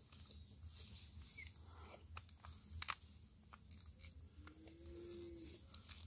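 Faint scraping and scattered small clicks of a toy scale-model farm tractor being pushed by hand through wet, sticky mud, its wheels bogging down; the sharpest click comes a little before halfway.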